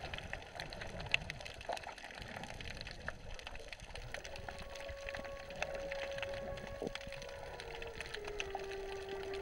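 Water noise around a submerged camera, with many scattered faint crackling clicks and a faint steady hum that appears about halfway through and drops lower in pitch near the end.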